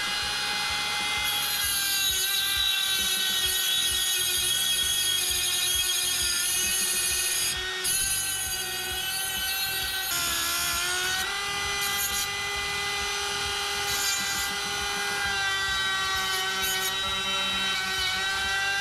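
Handheld rotary tool running at high speed against a bolt clamped in a vise: a steady high whine with overtones that dips a little in pitch under load about ten seconds in.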